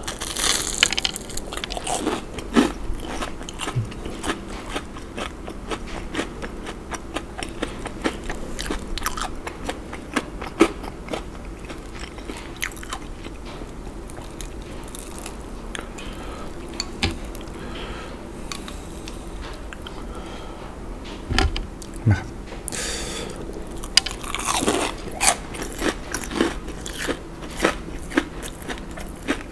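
Close-miked biting and chewing of a crispy deep-fried shrimp donut: many sharp crunches and crackles, thickest in the first dozen seconds and again near the end, with sparser chewing in between.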